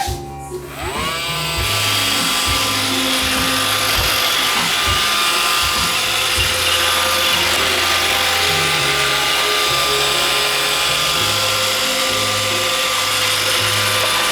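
iRobot Roomba 550 robot vacuum starting up: the last beeps of its start-up tune, then its vacuum motor and brushes spin up with a rising whine about a second in and run steadily.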